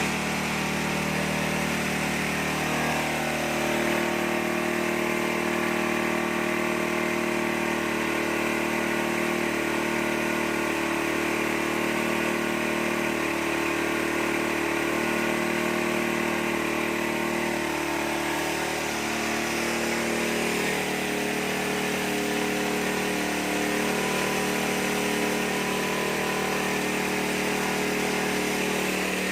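Corn-cracking machine running steadily, its motor holding a constant speed.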